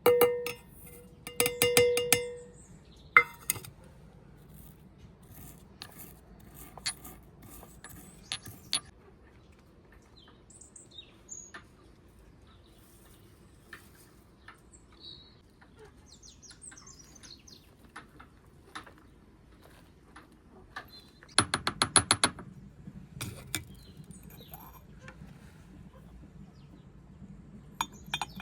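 Dishes and metal utensils clinking and clattering in bursts: a ringing clink at the start, a rapid rattle soon after, and another burst of clatter about three-quarters of the way through. Scattered light ticks fill the gaps, with a few faint bird chirps.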